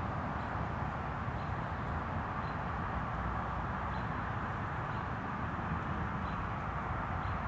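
Steady outdoor background noise: a low rumble under an even hiss, with faint short high ticks about once a second.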